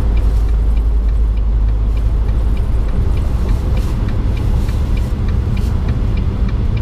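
Steady low engine and road rumble inside a moving semi-truck's cab, with a faint regular ticking about three to four times a second.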